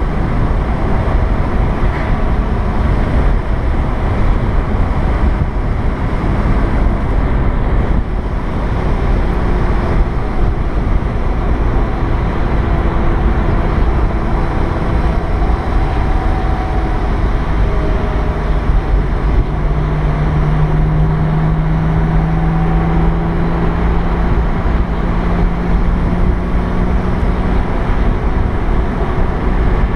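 Cabin sound of a Porsche 987 Boxster S on the move: steady road and wind noise with the mid-mounted flat-six engine humming underneath, its note holding steady through the second half.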